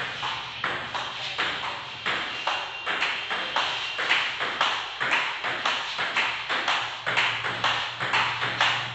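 Table tennis forehand rally: a celluloid-type ball being struck by the paddles, one of them a DHS Hurricane 301 blade, and bouncing on the table in a steady, even rhythm of sharp clicks, about two a second.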